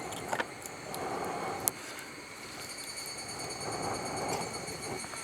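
Insects chirring steadily in several high, even tones, over a rushing noise that swells twice, with two sharp clicks in the first two seconds.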